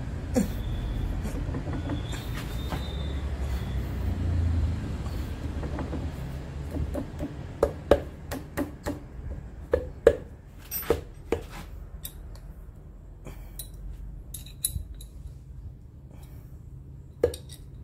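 Steel parts of a home-made eccentric clamp clinking and knocking against a steel machine table and its studs as the clamp is fitted and tested: a scatter of sharp metal taps, closest together from about a third of the way in. A low rumble runs under the first few seconds.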